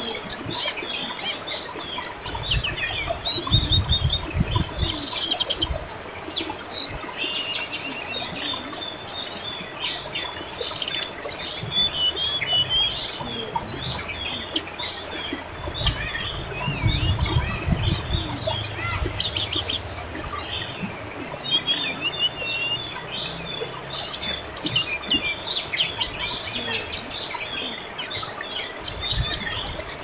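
Many birds chirping and trilling in quick, overlapping calls over the steady rush of a babbling river, with a few low rumbles.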